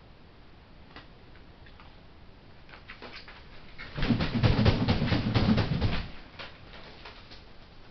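Juvenile herring gull flapping its wings hard for about two seconds in a rapid run of wingbeats, with the plastic sheeting under it rustling. A few light taps of its feet on the sheeting come first.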